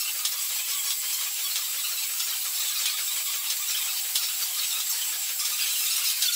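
Steam engine machinery running in the engine house: a steady hiss with a faint, even clicking of about four to five a second.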